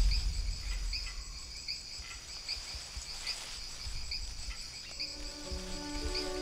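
Crickets chirping in grass, several overlapping with repeated high chirps over a steady high drone. A low rumble dies away in the first second, and soft held music notes come in about five seconds in.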